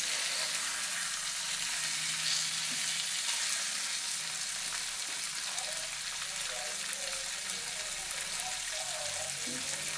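Snapper pieces sizzling in butter in a frying pan, with a spatula stirring and turning them. A few short sharp ticks come near the end.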